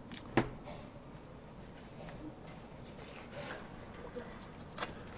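Faint scratchy rubbing of a plastic keycap being sanded by hand on sandpaper, with one sharp click about half a second in.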